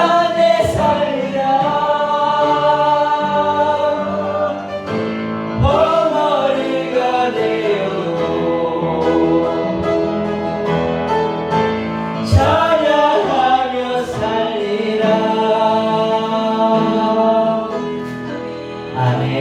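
Korean worship song sung slowly, voices holding long drawn-out notes with a few sliding entries, over instrumental accompaniment.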